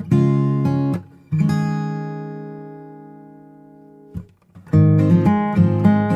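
Background music of a strummed acoustic guitar: a few chords, then one chord left ringing and fading for a couple of seconds, a brief pause, and the strumming picks up again.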